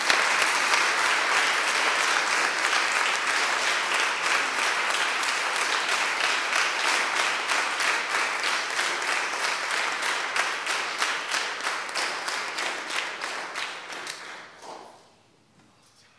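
An audience applauding, the clapping fading out near the end.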